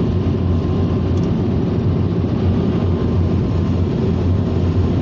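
Ryko Softgloss MAXX automatic car wash machinery running, a steady roar heard from inside the car.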